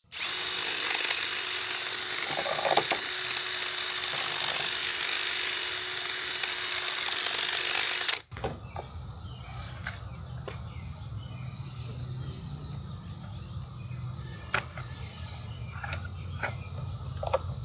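Power drill with a step bit running steadily at high speed with a constant whine, enlarging a hole in the mower's panel; it stops abruptly about eight seconds in. Scattered clicks and knocks of handling follow over a low rumble.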